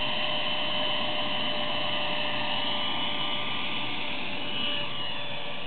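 Electric ducted fan of a foam RC F-35A jet running at full throttle, a loud steady high-pitched whine like a vacuum cleaner. The pitch dips briefly about five seconds in.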